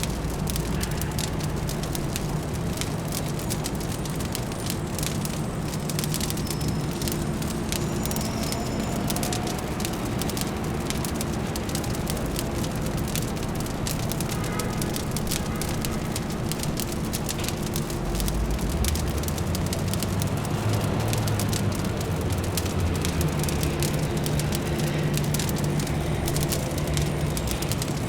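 Fire crackling with a dense run of small pops and snaps over a steady low city hum. A deeper low rumble joins about 18 seconds in.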